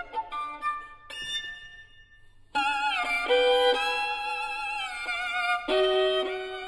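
Background instrumental music: slow, sustained melodic notes, sparse and quiet at first, then louder and fuller from about two and a half seconds in.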